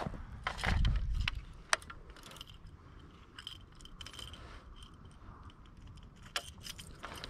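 Footsteps on loose shoreline rock and the handling of a baitcasting rod and reel: a dull thump and rustle about a second in, then scattered sharp clicks and light rattles, clustered near the end.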